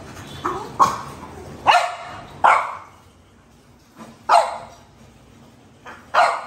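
French bulldog barking: about half a dozen short barks at uneven intervals, with quiet gaps between them.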